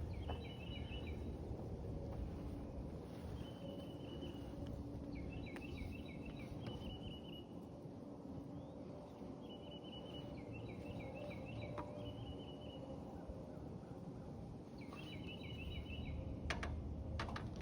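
A songbird singing the same short phrase every couple of seconds: a few quick down-slurred notes and a brief trill. A steady low rumble of outdoor background noise lies underneath, and two sharp clicks come near the end.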